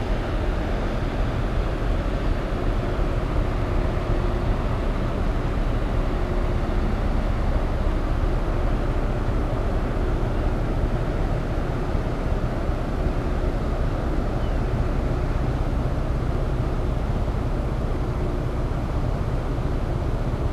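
Ferry Kuniga's engines running as she manoeuvres in the harbour: a steady low drone with a faint hum that comes and goes.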